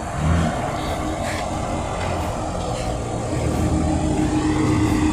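Off-road 4x4's engine running steadily, with a steady hum coming in about three and a half seconds in.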